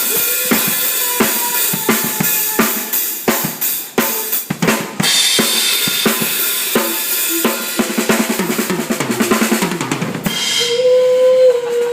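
Drum kit played during a sound check: a steady beat of kick and snare with cymbals, then a fill falling down the toms. The drums stop about ten seconds in, and a held sung note follows.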